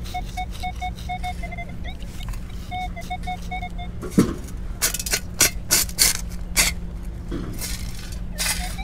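Minelab Manticore metal detector giving a run of short, same-pitched beeps as the coil sweeps over a target. From about four seconds in, a metal sand scoop digs into the sand and is shaken, making a series of sharp scrapes and clinks.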